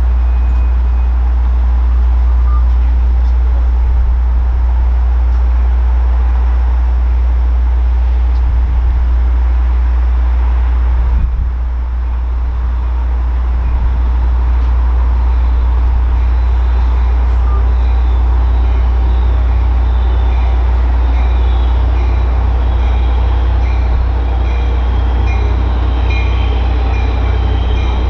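Caltrain train running at the station, a steady deep rumble with rail noise over it. Faint high squealing tones come in near the end.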